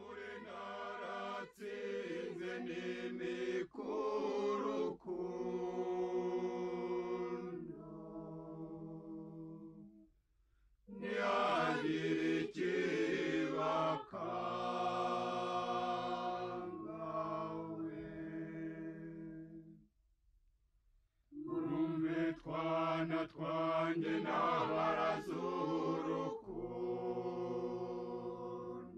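A group of voices singing as a choir in three long sung phrases, with a short pause between each.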